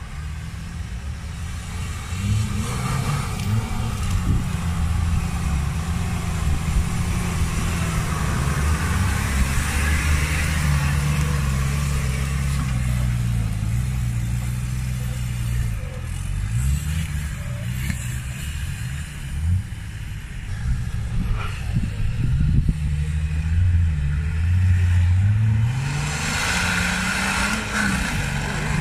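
Off-road 4x4 engine working under load, its revs rising and falling over and over as the vehicle crawls over rocks.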